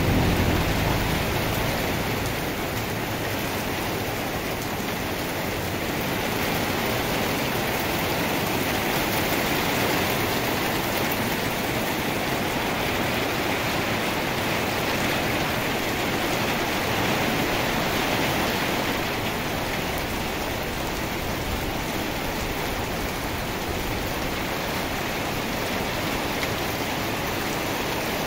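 Heavy rain pouring down steadily, an even hiss of downpour that holds at the same strength throughout.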